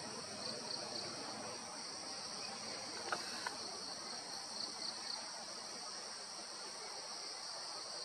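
Steady high-pitched chorus of forest insects, crickets or cicadas, droning without a break. Two short sharp snaps stand out about three seconds in.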